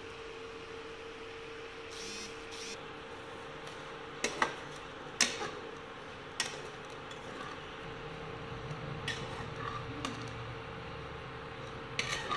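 Steel spatula scraping and stirring dry grated coconut and semolina around a non-stick wok, with a few sharp knocks of the spatula against the pan. A steady hum runs underneath.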